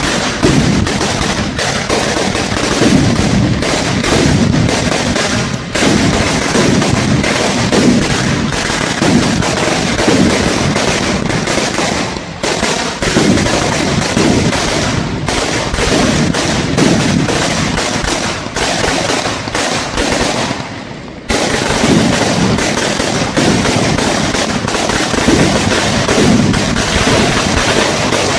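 A 10,000-cracker string ("10000 wala") of bijli firecrackers going off in a continuous, rapid rattle of bangs. It falters briefly a few times and dips about twenty seconds in before picking up again.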